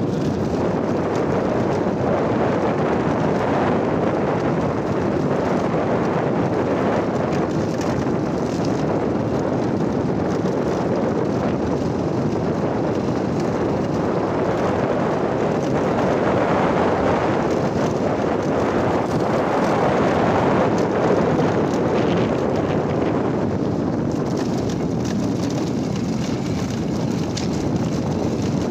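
Steady wind rush on the microphone mixed with the running noise of a vehicle riding over a gravel dirt road.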